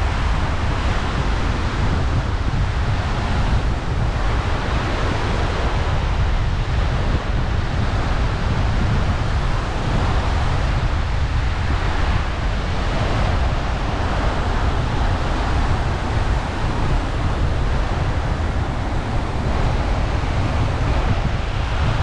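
Wind buffeting the microphone, a steady low rumble, over ocean surf breaking and washing up a sandy beach.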